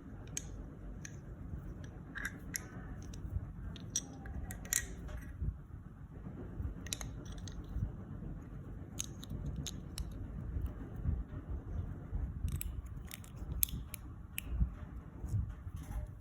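Plastic Lego bricks being handled and pressed together: scattered sharp clicks and light clatter over a low handling rumble.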